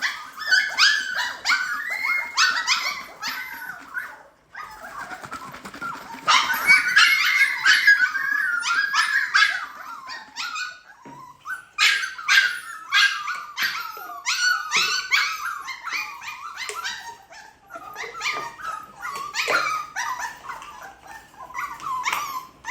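A litter of Siberian husky puppies whining and yipping, many short high cries overlapping almost without a break, the clamour of hungry puppies at feeding time.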